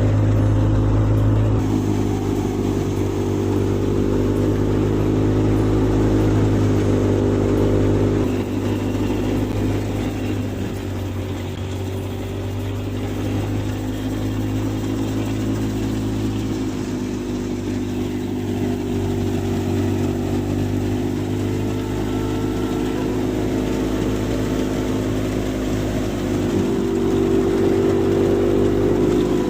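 Tractor engine driving a wheat thresher, running continuously with a steady drone whose pitch rises and sags a little as the load changes.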